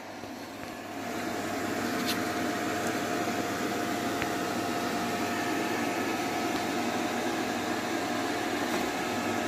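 Cooling fans of a home-built charging station's 1500-watt power supply and iCharger 406 Duo running steadily: an even whirring hum with a faint steady whine in it.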